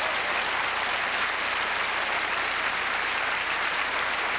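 Large theatre audience applauding after a punchline: a steady wash of many hands clapping.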